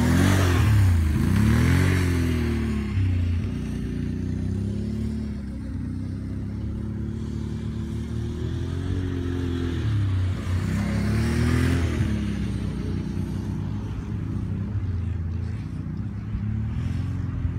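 ATV engine running as the quad rides around, its pitch rising and falling with the throttle. It is loudest as it passes close, near the start and again about eleven seconds in.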